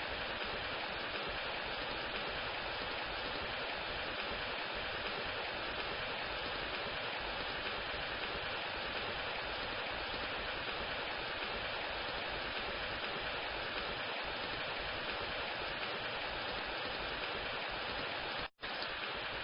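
Steady rush of water from a rainy-season waterfall, cutting out for an instant near the end.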